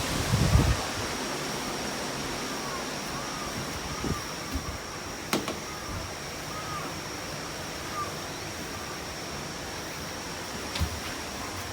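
Steady rushing noise of typhoon wind and rain. A few low thumps and a sharp click break through it, and some faint short chirps come in the middle.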